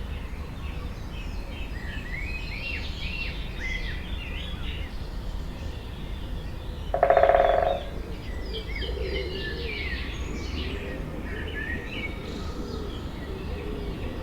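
Several forest songbirds singing, with quick chirps and warbled phrases throughout. About halfway through, one louder, lower call lasts under a second. A steady low background rumble runs underneath.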